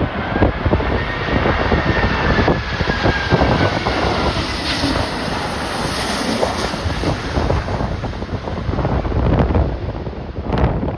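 Storm-force wind buffeting the microphone in heavy gusts. Underneath it, a jet airliner's engine whine falls slowly in pitch during the first half.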